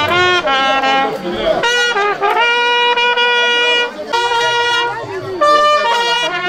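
Several trumpets playing a tune together: short notes at first, then a long held note in the middle, a brief break, and more notes.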